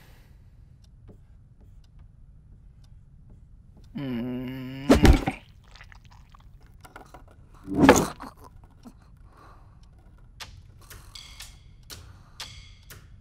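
Quiet classroom room tone broken by a low pitched sound lasting about a second, about four seconds in, followed at once by a heavy thunk. Another loud thump comes around eight seconds, and faint clicks and scrapes follow near the end.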